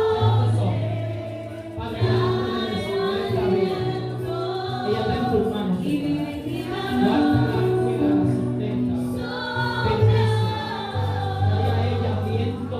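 Gospel worship music: a choir of voices singing over a sustained bass accompaniment.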